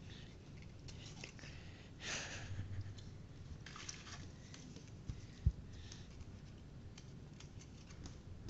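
Card paper rustling and crinkling as a cut-out puppet is handled and its parts are fastened together, with a few small clicks and a soft low thump about five and a half seconds in.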